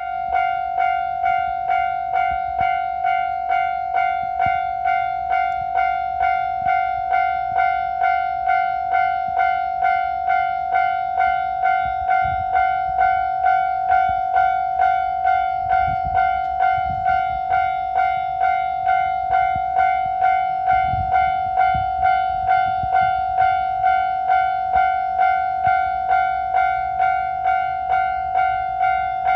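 Japanese level crossing warning bell ringing, one clear tone struck over and over in a steady, even rhythm. Through the middle stretch a low rumble sits under it: the two-car KiHa 121 diesel railcar passing the crossing.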